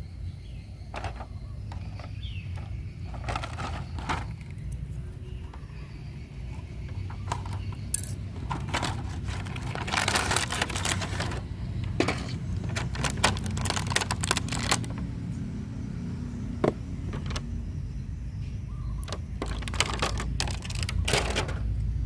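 Scattered clicks and rattles over a steady low rumble, busiest around the middle and again near the end.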